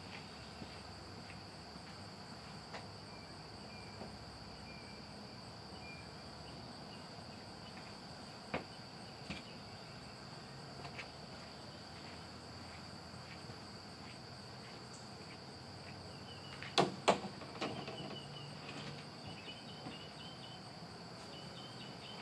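Insects chirring steadily in a high, even drone, with faint scattered chirps. A few short clicks are heard, with two sharp knocks close together about seventeen seconds in.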